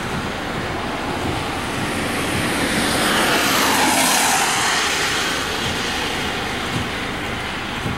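An SUV passing close by on a wet highway: a rush of tyre spray and road noise that swells to a peak about four seconds in and then fades, over steady traffic noise.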